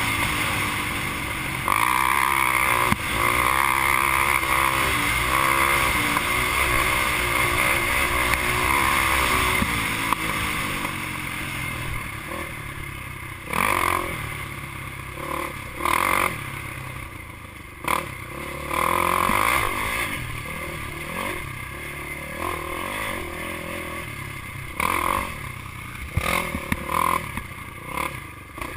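Race quad's engine running under hard, steady throttle for the first several seconds. Over the rest, the throttle is eased and blipped in short surges.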